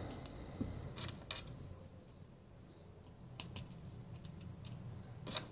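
Faint, scattered clicks and taps from handling a small printed circuit board and pushing LEDs' thin wire leads into its holes.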